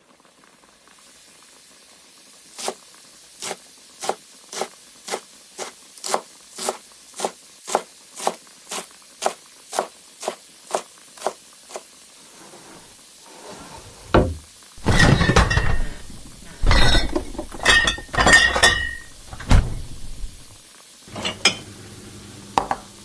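Kitchen utensil sounds: a steady run of about eighteen sharp knocks, two a second, then after a short gap a spell of loud clattering and clanging of pots, pans and dishes with a ringing metal tone, ending in a few separate clinks.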